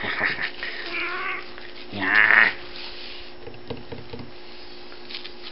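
Cat giving a few short meows while being played with by hand, the loudest about two seconds in, followed by a few light taps.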